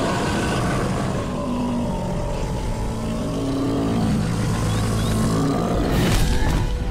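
Tyrannosaurus rex sound effect: a long, low, rumbling growl that swells into a loud roar about six seconds in.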